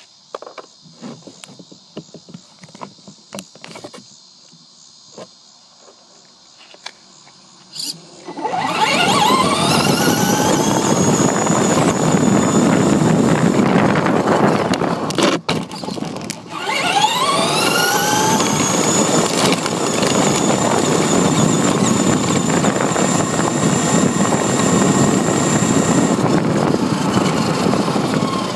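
RC truck's electric motor and gears whining as it speeds up. The pitch rises, then holds steady over the rumble of tyres on pavement. The first several seconds are only light ticking and clicking. Midway the whine cuts out for about a second as the throttle is let off, then it climbs again and holds, easing off near the end.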